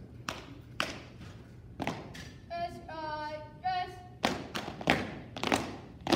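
Drill team's shoes stamping in unison on a hard tiled floor, sharp thumps about every half second to second. Midway comes a long shouted drill call held on one pitch, in two parts.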